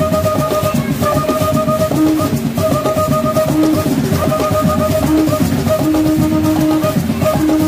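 Background music with a steady beat: drums under repeating held notes.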